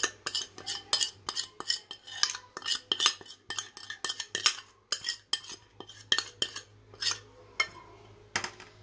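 A utensil tapping and scraping against a plate to knock ground spices off onto raw meat for a marinade: many quick clinks, several a second, thinning out near the end.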